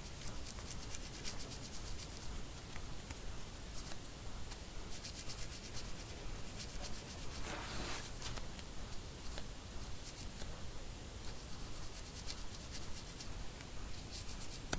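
Cotton swab rubbed by hand against the steel feed ramps of an M4 barrel extension, buffing in polish: a faint, continuous scratchy rubbing of many quick strokes, a little louder about halfway through.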